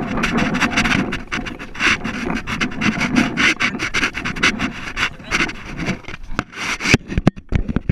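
Handling noise from a hand-held action camera: a rough, continuous rubbing and scratching as it is held against the hand and the paintball marker while the player moves. A few sharp knocks come near the end.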